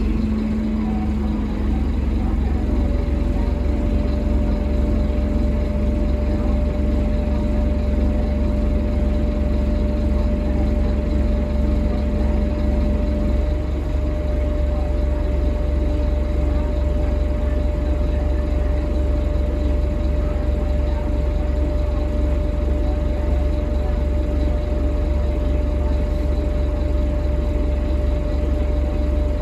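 Scania K230UB bus's DC9 five-cylinder diesel idling steadily, heard from inside the passenger cabin as a continuous low rumble. A low hum stops about halfway through, and a higher steady whine sets in a few seconds in.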